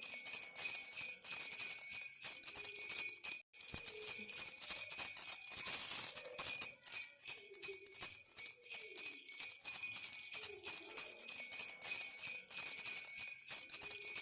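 A bell rattle is shaken continuously, making a rapid jingling with steady high ringing tones. The sound cuts out for an instant about three and a half seconds in.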